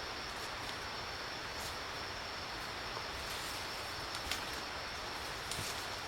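Steady forest ambience with a constant high insect drone, broken by a few faint clicks or snaps.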